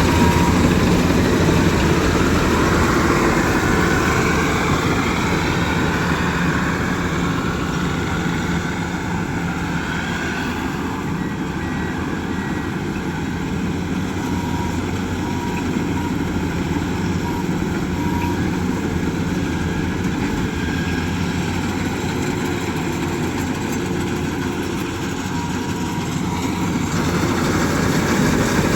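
Engine of heavy farm machinery, a harvester or tractor, running steadily; it eases off a little through the middle and picks up again near the end.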